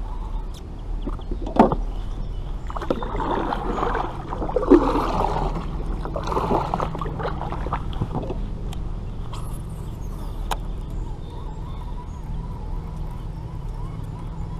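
Water sloshing and gurgling over a steady low hum, with a sharp knock about a second and a half in.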